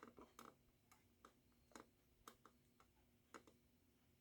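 Near silence: faint room hum with a dozen or so small, scattered clicks.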